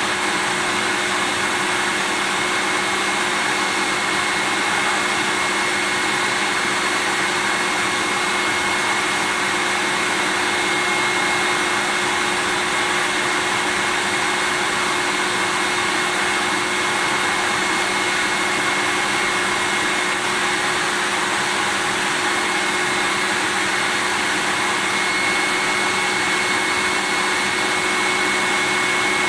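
Vacuum cleaner running steadily: an unchanging rush of air with a high, steady motor whine on top.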